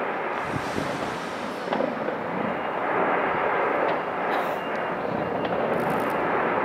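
Fireworks display going off: scattered bangs and crackles over a continuous dense wash of noise.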